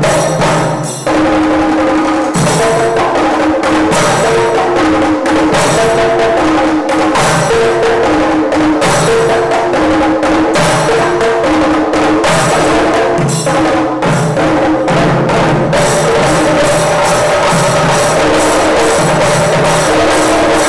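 Chenda melam: a troupe of Kerala chenda drums played with sticks, a loud, fast, dense stream of stick strokes on the drumheads.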